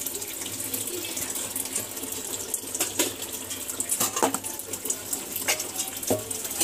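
Water running steadily, like a kitchen tap, with a few light knocks scattered through it.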